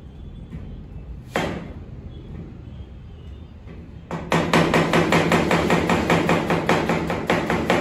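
Chef's knife chopping a red onion on a plastic cutting board: quick, even knife strokes knocking on the board, about six a second, starting about four seconds in. A single knock comes just over a second in.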